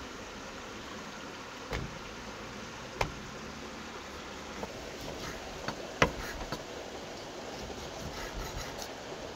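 Cleaver chopping a rack of lamb into chops on a wooden chopping board: about six sharp chops at uneven intervals, the loudest about six seconds in, then lighter knife taps on the board near the end, over a steady background hiss.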